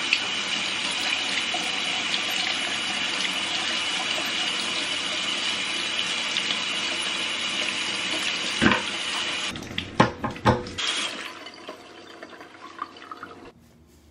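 Kitchen tap running steadily into a stainless steel sink as potatoes are rinsed and scrubbed under it. The water stops about nine and a half seconds in, with a few knocks and clatters around that point.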